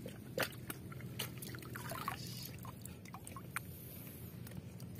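Water and small tilapia tipped out of a plastic bucket into a lake to be released, with a few short splashes and a trickle of pouring water.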